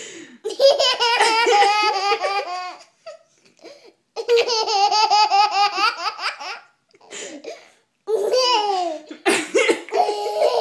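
Toddler's belly laughter in three long fits of rapid, pulsing giggles, each lasting two to three seconds, with short pauses for breath between them.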